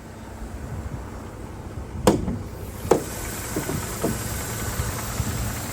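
Two sharp knocks about a second apart, then a car engine idling steadily.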